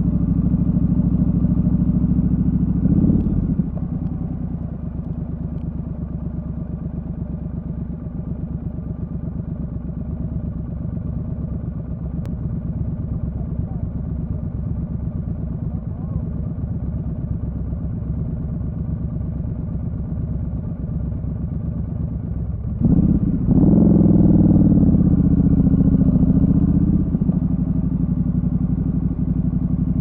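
Motorcycle engine idling. It gives a short throttle blip about three seconds in and settles to a quieter idle, then revs louder for a few seconds, with the pitch rising and falling, about twenty-three seconds in.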